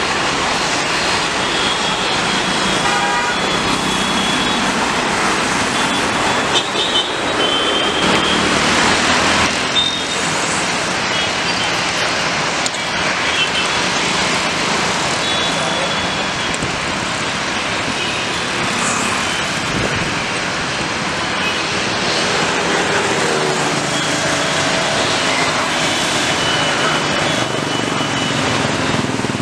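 Road traffic with several vehicle horn toots, mixed with the steady roar of a Boeing 777-300's twin jet engines at takeoff power as it rolls and climbs out.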